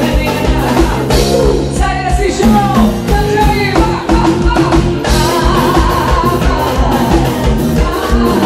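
Forró band music with a singing voice over a steady, driving kick-drum beat.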